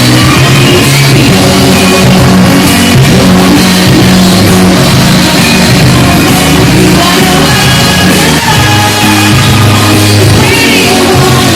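Live pop music with singing played through a concert PA system, very loud and steady with no breaks, heard from close to the speakers so the sound is overloaded and distorted.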